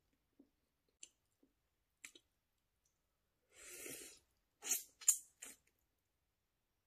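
Close-up eating sounds: soft, scattered mouth clicks, then a longer rushing sound lasting nearly a second, followed by three sharp crunching bites in quick succession.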